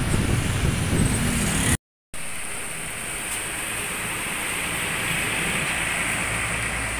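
Close street traffic with motorcycle and truck engines running, cut off abruptly after about two seconds. Then a coach bus passes with its tyres hissing on a wet road, the rushing swelling and easing as it goes by.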